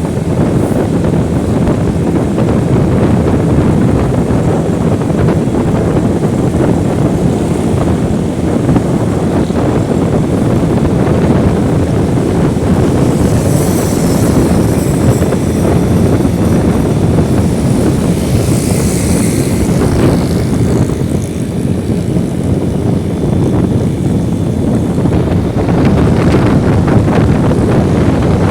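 Wind rushing over the microphone of a moving motorcycle, mixed with engine and road noise in a steady low rumble; a higher hiss swells up twice about halfway through.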